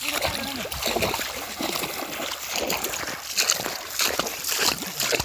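Repeated splashing and sloshing of legs wading quickly through shallow, muddy water.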